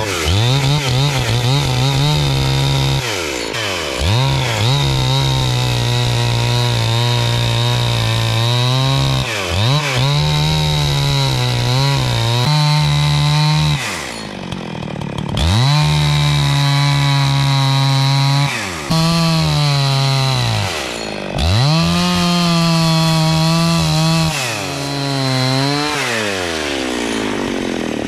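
Two-stroke chainsaw ripping lengthwise down a log in a lumber cutting guide (chainsaw mill). It is held at full throttle in long pulls several seconds each, with the throttle let off and the engine dropping briefly about five times, then easing down to idle near the end.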